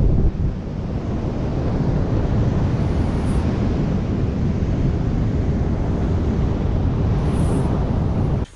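Steady, loud wind noise on the microphone of a camera flying in a wingsuit formation, mostly a deep low rumble with a hiss above it.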